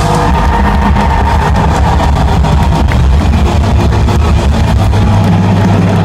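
Live rock band playing loud over a concert PA, recorded with heavy distortion so that the bass and drums swamp everything else.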